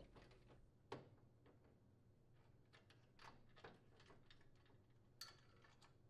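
Near silence with a few faint clicks and ticks, the clearest about a second in and near the end: a screwdriver working the screws out of a microwave's plastic door to free the handle.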